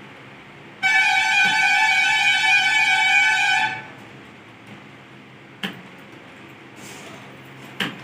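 A loud, steady pitched tone lasting about three seconds, then two sharp clicks near the end.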